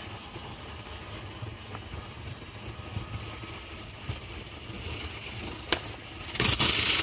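Drill-driven rotary brush turning inside a dryer vent duct, heard as a steady low rumble. A sharp click comes near the end, and then a much louder harsh rushing noise sets in.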